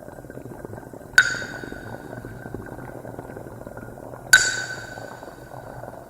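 Ceramic mug heard through a contact mic and processed live by a modular synthesizer: a steady rough rumble, with two sharp taps, about a second in and about four seconds in, each ringing out with several clear tones.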